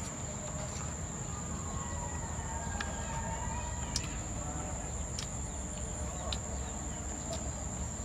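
Insects in the grass making a continuous high-pitched drone, with a few sharp clicks of chewing and lip smacks.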